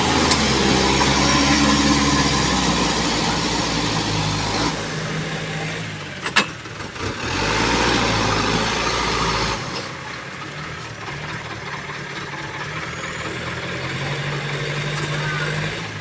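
Mitsubishi Fuso Canter truck's diesel engine revving hard under load, with a hiss over it, as the heavily loaded truck's rear wheels spin in mud, unable to climb. A single sharp knock comes about six seconds in, and the engine drops to a quieter, lower run about ten seconds in.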